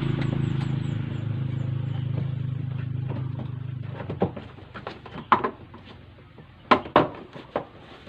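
Plastic rear cover panel of a twin-tub washing machine being fitted into place: a string of sharp knocks and clicks in the second half, the loudest about five and seven seconds in. Before them a steady low engine hum from a motor vehicle fades out.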